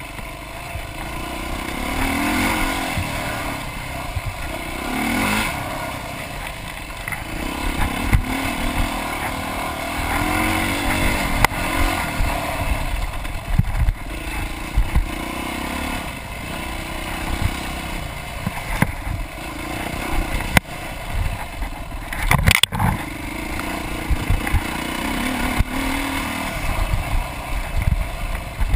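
Off-road dirt bike engine revving up and down as the rider works the throttle along a rough trail, with repeated knocks and rattles from the bike over bumps and a sharper clatter about two-thirds of the way through.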